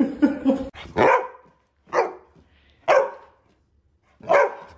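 A dog barking four times, about a second apart.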